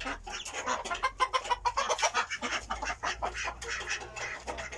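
A group of young chicks calling over one another in many rapid short cheeps and clucks while they feed.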